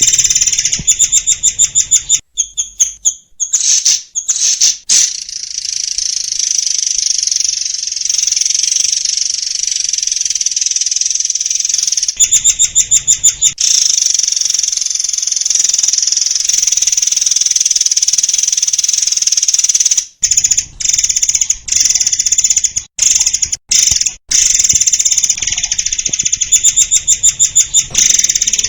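Murai air singing a long, dense, high-pitched song of rapid repeated notes and trills, with almost no pauses: the fast 'tembakan' bursts prized in a training recording for songbirds.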